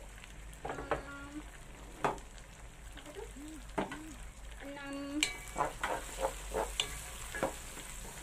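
Tomatoes and fried onions sizzling in oil in a non-stick pot while a wooden spoon stirs them, with scattered clicks of the spoon against the pan. Short pitched sounds come through now and then over the sizzle.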